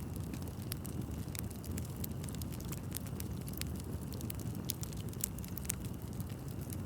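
Wood fire burning steadily with a low, even rumble, and sharp pops and crackles scattered irregularly, several a second.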